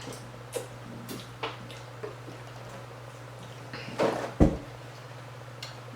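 Short tabletop handling and eating noises: a few brief clicks and rustles, then a louder bump about four and a half seconds in, over a steady low electrical hum.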